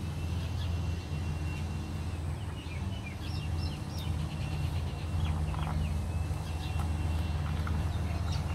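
Birds calling with short, high chirps over a steady low hum.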